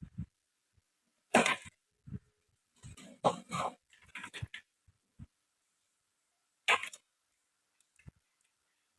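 Irregular knocks, clicks and short scraping sounds of tools and plastic or metal parts being handled during repair work, with the louder scrapes about a second and a half in, around three to four and a half seconds, and near seven seconds.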